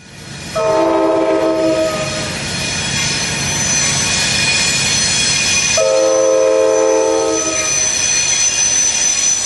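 Amtrak California passenger train led by an F59PHI diesel locomotive passing close by and sounding its multi-chime air horn: two long blasts, the first about half a second in and the second about six seconds in. The wheels on the rails make a continuous rushing noise with steady high tones underneath.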